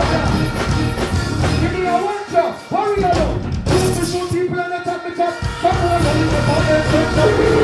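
Dancehall music played loud over a stage sound system, with a voice singing over it. The bass cuts out for a few seconds in the middle and then comes back in.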